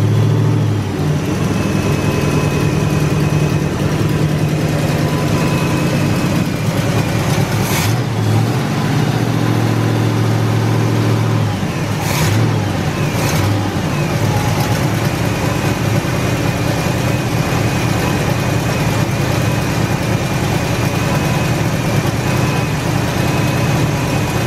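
Oldsmobile 403 V8 with a four-barrel carburetor running steadily under the open hood, picking up in revs briefly near the start and for a few seconds in the middle. A thin steady whine sits above it, with a few sharp clicks around the middle. The owner says it still has an exhaust leak from a warped header.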